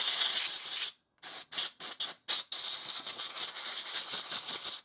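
Compressed-air blow gun hissing in several short bursts, then one longer blast of over two seconds, blowing out the jets of a small lawnmower carburetor to clear a blocked nozzle.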